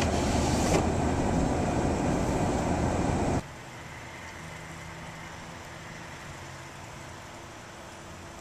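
Car driving on snowy roads: a loud, steady rumble of road and engine noise that cuts off abruptly about three and a half seconds in, leaving a much quieter steady hum.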